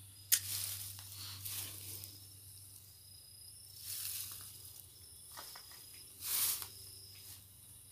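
Dry grass and brush rustling in four short bursts, the loudest near the end, over crickets chirping steadily at a high pitch.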